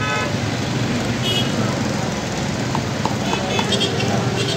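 Busy market-street ambience: steady traffic and crowd noise, with a few short horn beeps.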